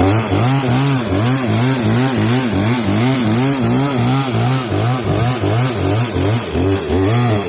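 Power saw cutting into a log, its motor pitch rising and falling about two to three times a second as the blade loads and frees.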